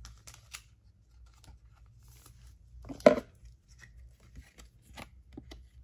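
Light plastic rustling and small clicks as a baseball card is slid into a soft plastic penny sleeve, with a brief voice-like hum about three seconds in.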